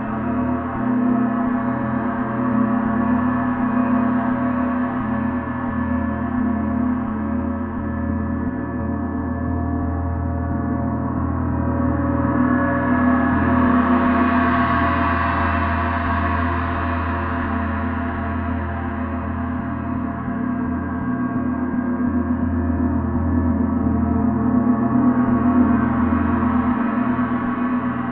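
A gong played continuously, a dense, sustained wash of ringing overtones with no pauses. It swells brighter about halfway through and again near the end.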